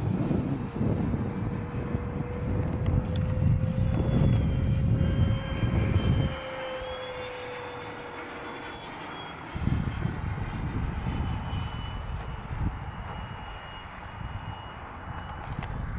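Radio-controlled model F-16 and Eurofighter jets flying overhead, their turbines giving thin whining tones that slowly drift in pitch. A low rumble underneath drops away about six seconds in and comes back about three seconds later.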